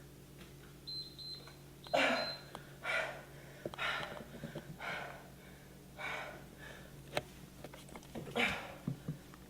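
A person breathing hard during a workout, with forceful breaths out roughly once a second.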